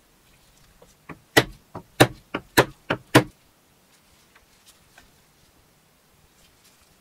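Mallet striking a multi-prong stitching chisel (pricking iron) to punch stitching holes through leather: about eight sharp knocks in two seconds, a light tap alternating with a hard strike, then stopping.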